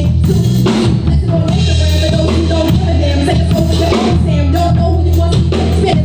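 Live band playing a rock-style song: drum kit and electric guitar over a steady bass line, with a woman's voice singing over the band.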